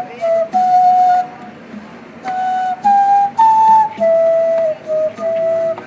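A flute playing a slow melody of short held notes in phrases with brief pauses: a few notes near one pitch, a break, then a three-note rise and a fall back to lower held notes.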